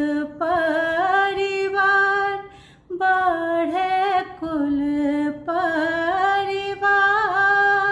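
A woman singing a Chhath folk song unaccompanied, in long held, ornamented notes, with a brief pause for breath about three seconds in.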